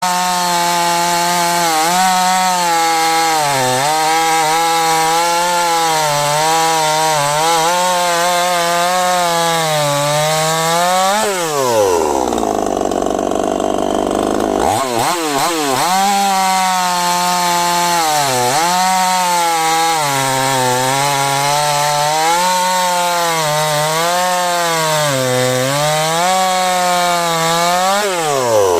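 Chinese-made two-stroke chainsaw cutting firewood at full throttle, the engine note dipping and recovering again and again as the chain loads up in the wood. About eleven seconds in, the throttle is let off and the engine drops to a lower speed for a few seconds. It then revs back up for another cut and falls off again near the end.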